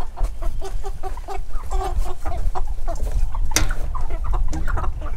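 Crated Cornish Cross broiler chickens clucking repeatedly in short calls, with a sharp knock about three and a half seconds in.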